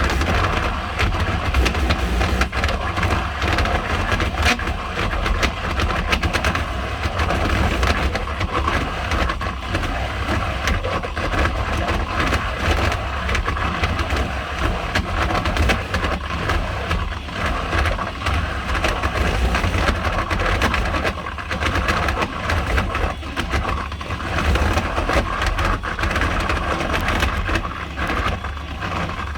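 New Sanicon pump running continuously with a loud, rough grinding noise over a steady low hum, even though it is pumping only fresh water, which the owner takes as abnormal for a new pump.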